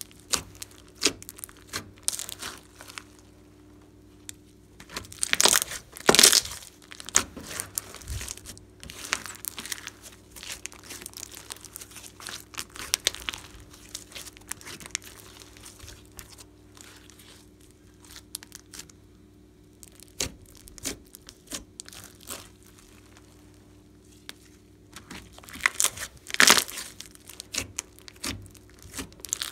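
Hands squishing, folding and stretching a large mound of glossy slime, making irregular clusters of sharp sticky clicks and pops. The sound is loudest about six seconds in and again near the end.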